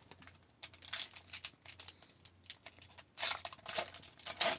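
A trading card pack's wrapper being crinkled and torn open by hand, in short irregular rustles, the longest near the end.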